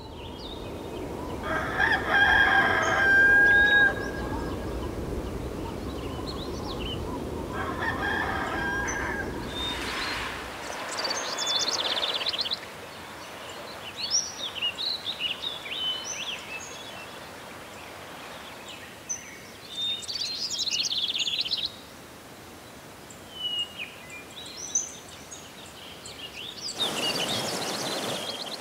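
A rooster crowing twice, several seconds apart, the first crow the loudest. Small birds then chirp in quick short calls, and near the end rushing water swells up briefly.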